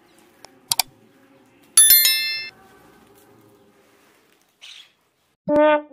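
Subscribe-button animation sound effects: two quick mouse clicks, then a bright bell ding about two seconds in that rings briefly and cuts off. Near the end, brass music starts with short repeated notes.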